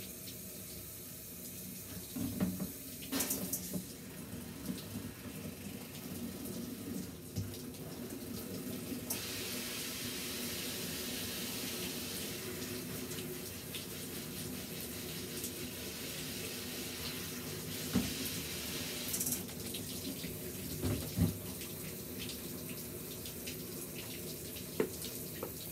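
Water running from a handheld shower head, spraying onto a wet dog in a plastic tub. The spray is louder for about ten seconds in the middle. A few knocks against the plastic tub come through it.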